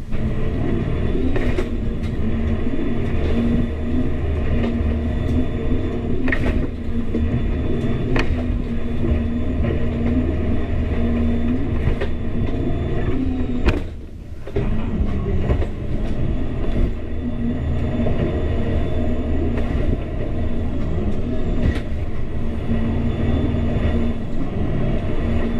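The engines of a Coast Guard 33-foot law enforcement boat running under way, heard inside its enclosed cabin: a steady low drone with a steady hum in it. A few sharp knocks and rattles break through, and the sound drops briefly about halfway through.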